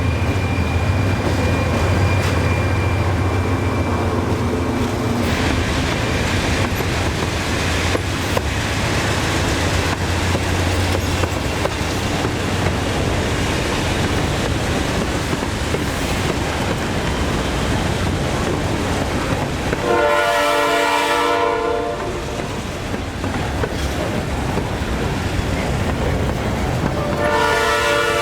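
Freight train rolling past with a steady rumble of wheels on rail and a low drone that fades after about ten seconds. The diesel locomotive's air horn sounds for about a second and a half some twenty seconds in, and again near the end.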